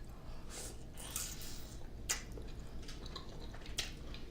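Soft wet squishes and sticky clicks of saucy seafood being handled and eaten, with a few sharper clicks scattered through.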